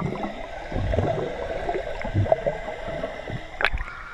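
Swimming-pool water heard with the microphone submerged: muffled, irregular gurgling and bubbling. A sharp splash comes about three and a half seconds in as the camera breaks the surface.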